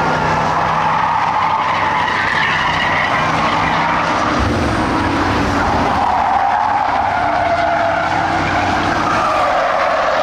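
Several Ford Crown Victoria stock cars' V8 engines running around a dirt oval, a steady loud engine sound whose pitch rises and falls as cars pass and change speed.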